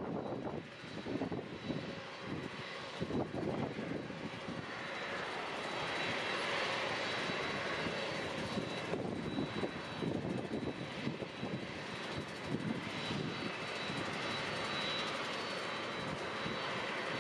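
Airliner engines running, a continuous rush of noise with a thin steady high whine. The sound grows fuller about five seconds in.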